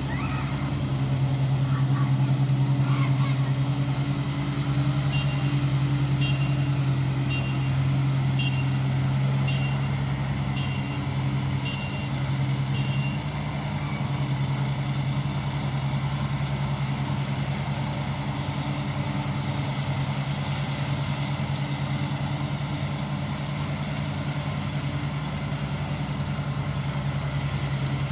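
Engine of an ISEKI 325 rice harvester running steadily under load with a low hum. From about five seconds in, a high beeper sounds about once a second, some eight times, then stops.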